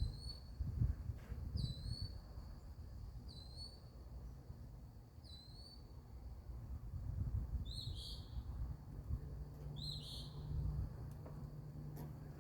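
A bird calling from one spot: a short rising whistled note repeated four times about every one and a half to two seconds, then a different, fuller phrase twice in the second half. Beneath it runs a low background rumble, joined by a steady low hum about nine seconds in.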